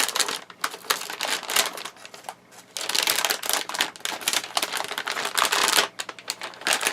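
Packaging being handled close to the microphone: dense, irregular crackling and crinkling of plastic wrapping, with a few brief pauses, as the graphics card is unwrapped.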